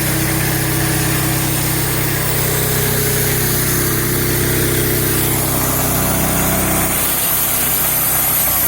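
Small gasoline engine running steadily at an even speed; its higher tones fade out about seven seconds in while the low running note carries on.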